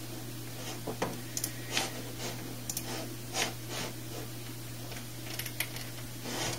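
Scattered mouse clicks, about a dozen at irregular intervals, over a steady low hum.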